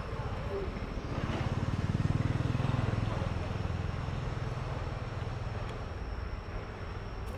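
Low engine hum of a passing vehicle, swelling about a second in and fading away over the next few seconds.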